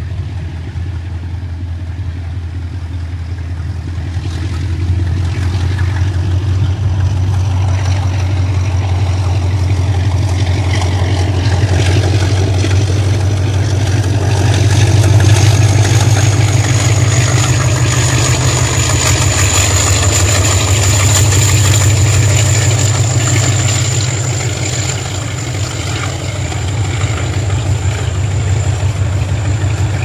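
Chinese diesel locomotive approaching and passing at speed, its deep engine drone building to its loudest about halfway through. The long train of open freight wagons behind it then rolls by with wheel clatter and a steady high whine.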